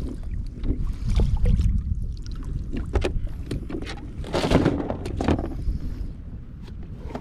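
Wind buffeting the microphone over water around a kayak, with scattered knocks and clicks, and a brief louder rush of noise about four and a half seconds in.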